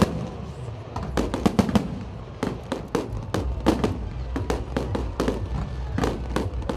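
Aerial fireworks display: shells bursting in quick, irregular succession, several bangs a second, over a steady low rumble.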